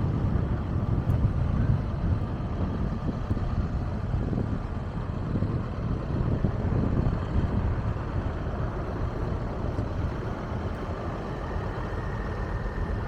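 Bobcat E42 mini excavator's diesel engine running steadily, with a low rumble that varies a little in loudness.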